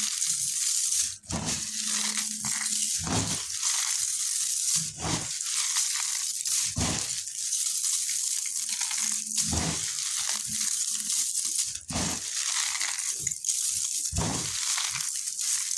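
Multani mitti (Fuller's earth clay) crunching and crumbling: a continuous gritty crackle, with a dull thump about every two seconds as pieces are pressed or broken.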